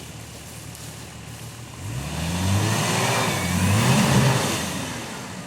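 Off-road 4x4's engine revving hard under load: quiet for about two seconds, then the pitch climbs twice as the engine gets louder, and it eases off near the end.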